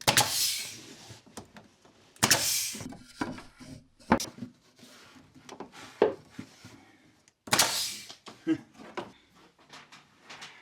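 A heavy washing machine being shoved across the floor in three short pushes. Each push is a loud scrape of about a second, with sharper knocks and clunks in between.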